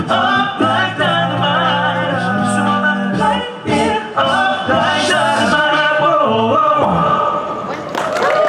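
Male a cappella group singing in close harmony over a sung bass line, closing out a pop song. Near the end the audience starts cheering and clapping.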